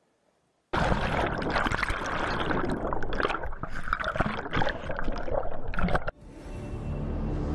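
Water churning and gurgling loudly, as if heard in or right at the water, starting abruptly about a second in and cutting off suddenly about six seconds in. Ominous music with a low steady drone then begins and grows louder.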